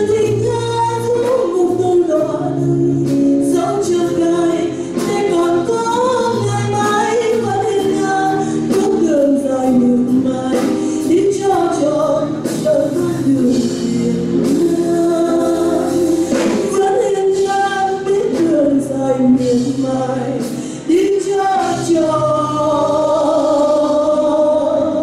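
A woman singing a Vietnamese song into a microphone, backed by a live band with electric bass and drums. Near the end she holds one long note as the song closes.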